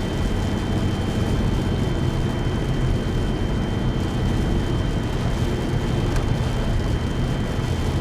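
Steady low rumble of a car driving on a snow-drifted road, heard from inside the vehicle, with a faint steady high-pitched tone running underneath.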